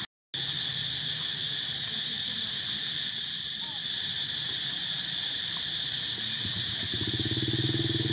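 Insects droning steadily in a high, even tone, after a brief silent gap at the start. A low, pulsing engine hum comes in about six and a half seconds in and grows louder toward the end.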